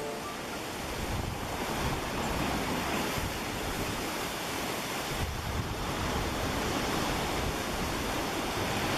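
Tarumi Falls, a small waterfall that drops off a coastal cliff straight into the sea, giving a steady rush of falling water mixed with surf. Wind on the microphone adds an uneven low rumble.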